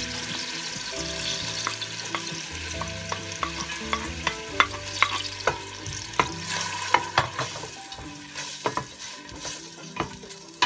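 Chopped onion sizzling in melted butter in a stainless steel saucepan as it is tipped in and stirred with a wooden spoon, the spoon knocking sharply against the pot many times. The sizzle eases off somewhat as the stirring goes on.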